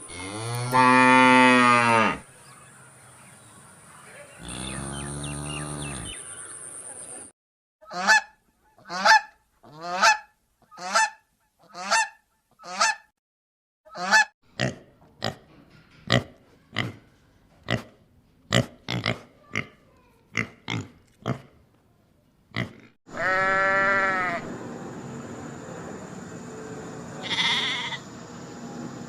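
A series of animal calls: a long pitched call at the start and another a few seconds later, then a run of six short calls about one a second, then quicker, irregular short calls, and a long pitched call again near the end.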